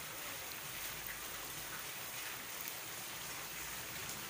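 Heavy rain falling onto ankle-deep floodwater covering the ground, a steady hiss of drops striking standing water.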